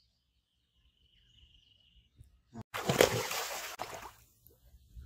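A person plunging into pond water: a sudden loud splash about two and a half seconds in, lasting about a second, then the water sloshing and lapping around him.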